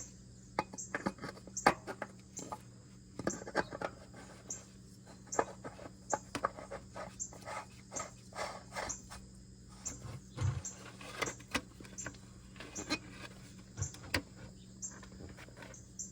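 Light clicks and knocks of a new oil filter being spun by hand onto the filter housing of a 5.7L HEMI V8. A faint high chirp repeats about every two-thirds of a second over a low steady hum.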